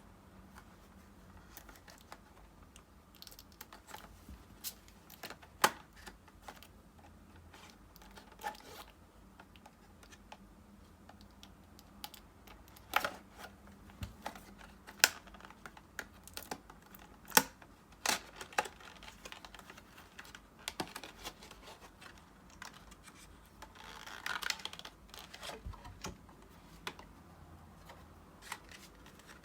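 Packaging of a JBL Go 3 speaker being handled and opened: scattered sharp clicks and taps, with a short rustle of wrapping about two-thirds of the way through.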